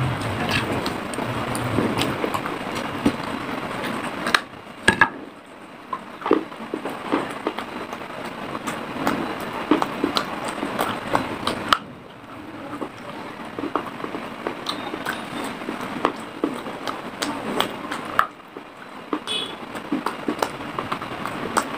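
Close-miked crunching and chewing of pieces of a small unglazed clay pot, a dense crackle of gritty clicks, with a few sharp cracks about four to five seconds in.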